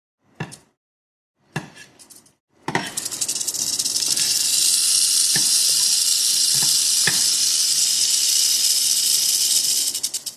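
Rattlesnake rattling its tail: a continuous dry buzz that starts suddenly about two and a half seconds in and stops near the end, with a few sharp clicks over it. Two brief handling noises come before it.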